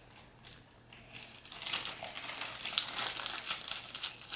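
Small clear plastic zip-top bag crinkling as it is handled: quiet for about the first second, then a run of irregular crackles.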